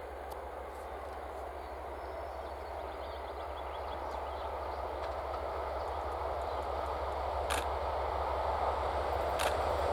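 Double-deck passenger train hauled by a TEP70BS diesel locomotive approaching on the rails, its rumble growing steadily louder, with a couple of sharp clicks near the end.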